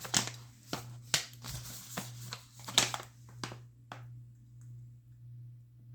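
Small objects being handled up close: a run of sharp clicks and taps for about four seconds that then stops, over a low steady hum.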